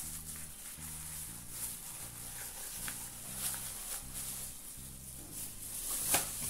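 Thin plastic sheet crinkling and rustling as it is peeled and bunched off rolled pie dough, with a few sharper crackles, the loudest about six seconds in. A low background music bass line steps along underneath.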